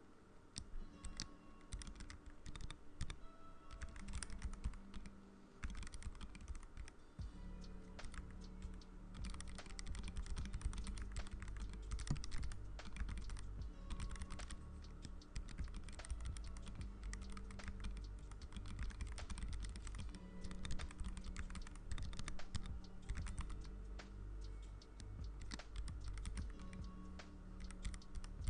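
Continuous typing on a K61 Pro keyboard fitted with clear PBT keycaps: a dense run of key clicks, over background music.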